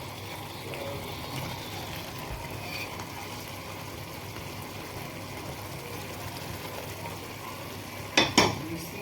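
Thick paneer do pyaza gravy simmering as paneer is stirred through it in the pan, a steady soft bubbling and scraping. Two sharp knocks come close together near the end.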